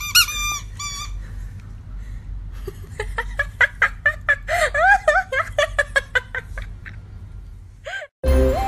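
A plush squeaky dog toy squeaking: a few high squeaks at the start, then a quick run of lower squeaks from about three seconds in. Music takes over near the end.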